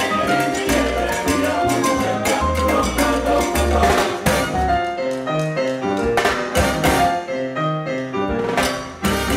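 Live salsa band playing: Latin percussion and trombones over a driving rhythm. The deep bass drops out for a few seconds in the middle and comes back near the end.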